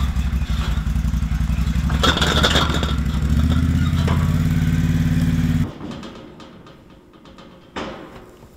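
A vehicle engine running with an even low pulse and a rattle about two seconds in. Its pitch rises a little, then the sound stops abruptly a little past halfway, leaving quieter rustling and a short knock near the end.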